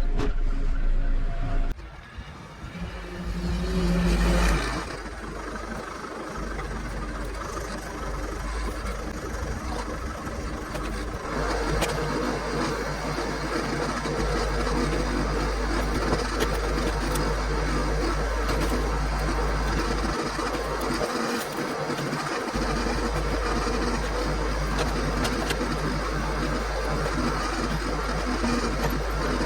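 John Deere backhoe's diesel engine running steadily while working. The sound drops away briefly about two seconds in, builds back up, and is a little louder from about eleven seconds in.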